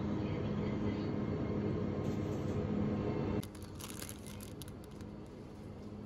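Steady rumble of a moving vehicle with a low hum, which cuts off abruptly about three seconds in. A quieter stretch with a few light rustles or crinkles follows.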